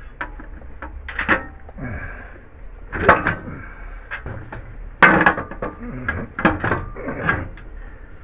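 Irregular knocks, clunks and scrapes of hands working metal parts as a small engine is shifted and fitted onto its mounting frame, the loudest clunks about three and five seconds in.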